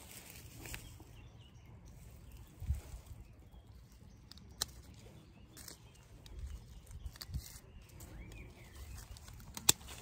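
Pruning shears snipping rose stems: a few sharp clicks, the loudest near the end, over low rustling.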